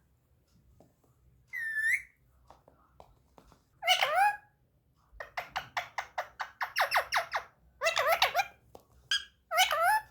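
A pet parrot whistling and calling: a single rising whistle, a few separate calls, and in the middle a quick run of about a dozen short squawks, roughly five a second.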